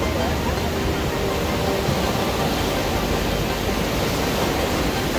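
Steady rush of ocean surf below a pier, an even wash of noise with no distinct breaks.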